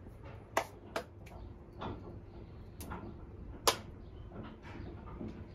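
Wood fire crackling in a metal bucket burner: a handful of sharp, irregular pops and cracks over a low background, the loudest a little after halfway.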